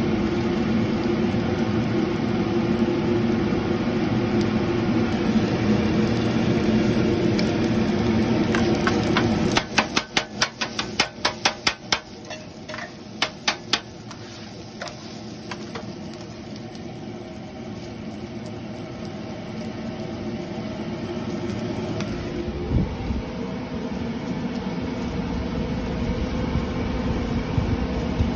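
Steady fan hum in a food-truck kitchen. About ten seconds in, a spatula clacks sharply and rapidly on a flat-top griddle for about four seconds, chopping meat. A low rumble grows in the last few seconds.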